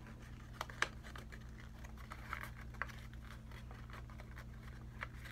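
A sheet of paper being handled and folded: faint scattered crinkles and soft clicks, over a steady low hum.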